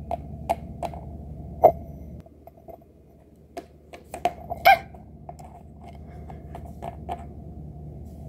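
Small plastic toy figures and toy furniture being handled and set down on a wooden floor: irregular light clicks and taps over a steady low hum.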